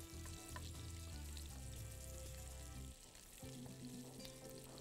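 Soft, steady sizzle of butter melting in hot vegetable oil in a roasting pan, stirred with a spatula.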